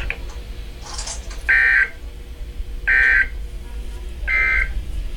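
Emergency Alert System end-of-message code: three short bursts of harsh two-tone digital data buzz, about a second and a half apart, marking the end of the warning broadcast.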